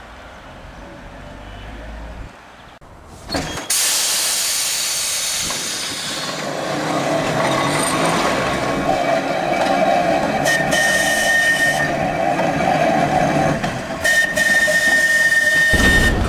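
Manx Electric Railway narrow-gauge electric tram car running along the rails, a steady loud rolling noise with hiss that starts suddenly about three seconds in. It is joined twice near the end by a short, high, thin squeal.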